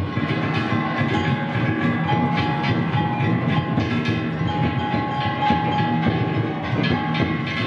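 Danjiri festival floats' drums and hand gongs struck in a busy, clanging rhythm, with metallic ringing and a held high tone through the middle, over crowd noise.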